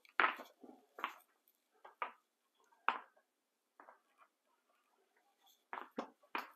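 A long-handled floor squeegee pushing wet metallic epoxy across a concrete floor, short strokes about once a second with a pause of a second or so in the middle.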